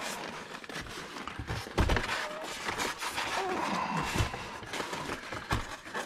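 A white polystyrene foam insert scraping and rubbing as it is pushed out of a cardboard box sleeve, with irregular knocks from the handling.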